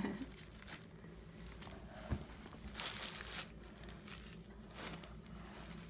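Faint rustling and crinkling as Play-Doh and plastic toy tools are handled, with a light tap about two seconds in.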